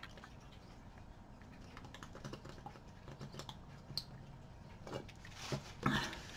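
Faint scattered small clicks and taps of objects being handled at a table, with one sharper tick about four seconds in.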